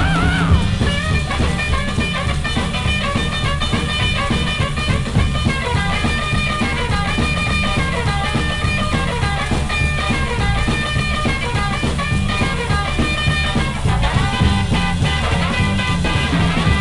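1960s beat-group rock and roll recording in an instrumental break between sung verses: electric guitars, bass and drums playing at a steady beat.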